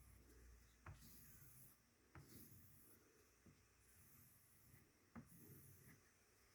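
Faint strokes of a knife blade drawn across a hand leather strop: a soft rubbing hiss with each pass, and three light taps.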